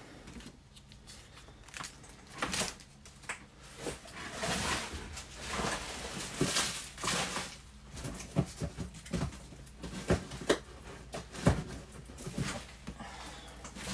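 Cards and plastic penny sleeves being handled, with irregular rustles and light clicks throughout.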